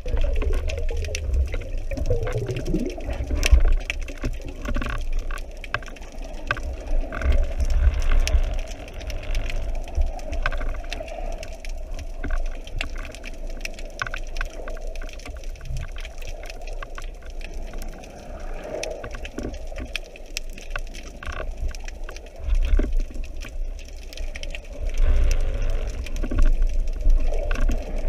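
Water sloshing and gurgling around a spearfisher's camera, with a low rumbling that swells and ebbs and scattered short crackling clicks.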